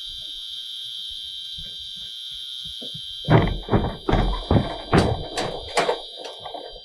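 Electronic carp bite alarm sounding one continuous high tone, the sign of a fish running hard with the line. From about three seconds in, a series of heavy thuds, roughly two to three a second, rises over the alarm and is louder than it.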